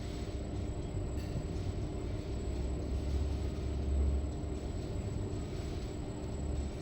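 Steady low mechanical rumble with a faint steady hum, swelling slightly about halfway through.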